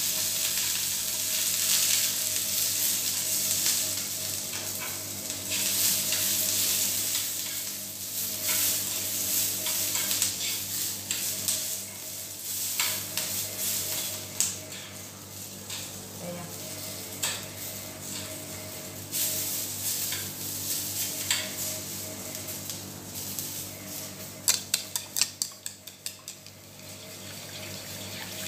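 Sliced onion and bell pepper sizzling in a small frying pan over a gas flame while being stirred; the sizzle grows weaker in the second half. Near the end comes a quick run of sharp taps of the stirring sticks against the pan.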